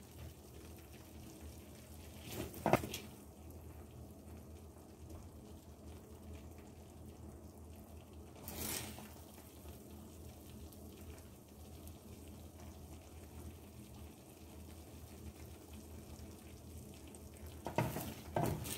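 Kuymak of cornmeal, butter and cheese sizzling faintly in a copper pan over a low flame, nearly done. A spoon scrapes and knocks against the pan a few times as the stringy cheese is lifted and stirred.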